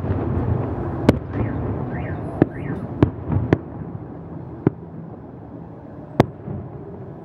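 Aerial firework shells bursting: about six sharp bangs at irregular intervals, the loudest about six seconds in, over a steady background rush.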